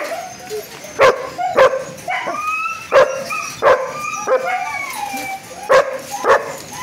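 A shepherd-type dog barking excitedly in short pairs, about six sharp barks in all, with high, wavering whines between them. It is the overexcited greeting of a dog that can't contain himself.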